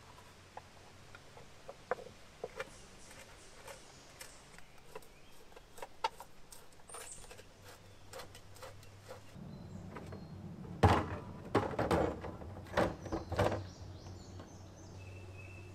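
Light clicks and taps of a screwdriver and plastic parts as the flame-arrester cover is screwed back onto a jet ski's carburetor, then a cluster of louder knocks and thumps about two-thirds of the way in as parts are handled in the open engine compartment.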